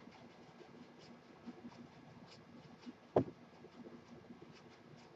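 Quiet room with a few faint small clicks and one sharp knock about three seconds in.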